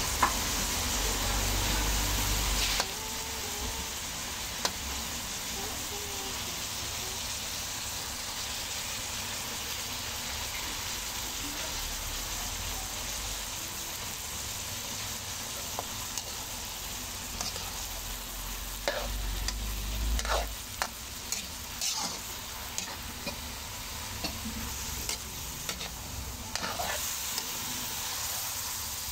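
Bitter melon and egg sizzling in hot oil in a wok, loudest for the first three seconds. In the second half a metal spatula scrapes and clicks against the pan as the mix is stirred.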